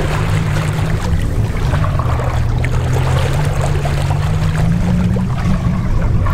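Motorboat engine running steadily at cruising speed, a low hum under the rush of water along the hull; its pitch shifts a little about five seconds in.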